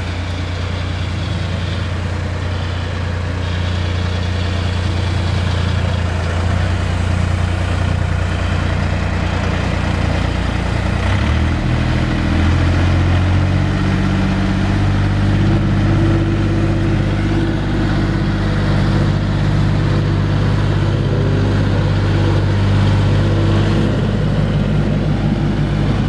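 Engine of a 3-ton ride-on road roller running steadily as the roller drives. Its low drone steps up in pitch and grows a little stronger about halfway through.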